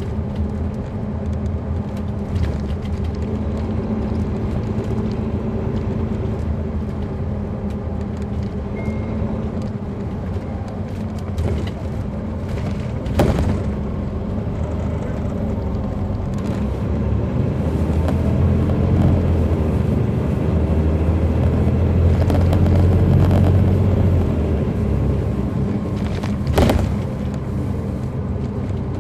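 Caterpillar C13 diesel engine of an MCI D4500CL coach heard from inside the bus, running steadily and getting louder for several seconds past the middle before easing back. Two sharp knocks are heard, one about halfway and one near the end.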